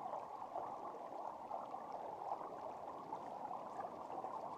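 Small river flowing: a steady, faint babble of running water.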